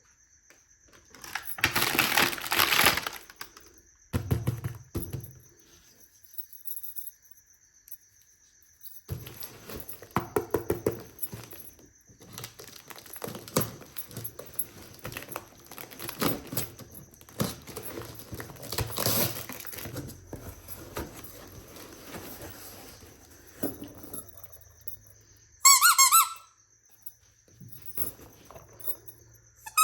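Small plastic toys and their packaging being handled, with rustling and light clattering in bursts, over a faint steady high whine. Near the end a short, loud, high squeak with a wavering pitch sounds, like a squeaky toy.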